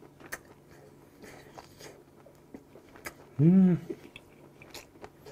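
A man chewing a mouthful of fried rice, with faint wet mouth clicks, then a short, loud "mmm" of relish about three and a half seconds in, its pitch rising and then falling.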